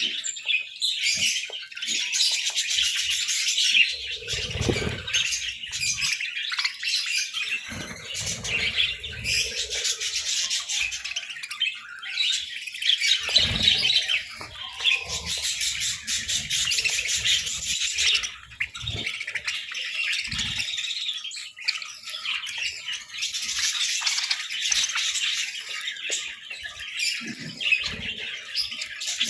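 Budgerigars chattering without a break, a dense stream of high chirps and warbles, with a few low bumps now and then.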